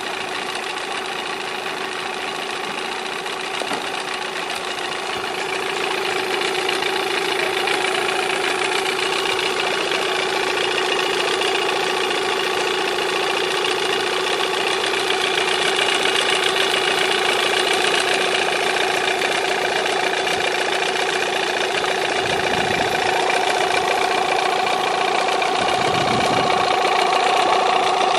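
Yamaha 8SG 8 hp two-cylinder two-stroke outboard running steadily at idle, getting a little louder about five seconds in.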